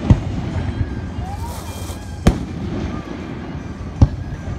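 Fireworks display: three sharp aerial shell bangs, one near the start, one about two seconds in and one about four seconds in, over a steady low rumble.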